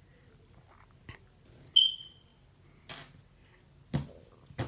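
A single short high beep that starts suddenly and fades within half a second, with a few soft clicks and taps around it.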